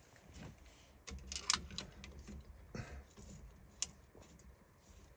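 Scattered faint clicks and light knocks of steering-wheel parts being handled and pressed onto the steering column while the retaining nut is started.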